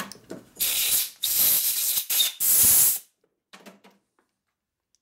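Three blasts of compressed air from an air blow gun, clearing chips and cutting fluid out of a freshly re-tapped bolt hole, followed by a few faint clicks.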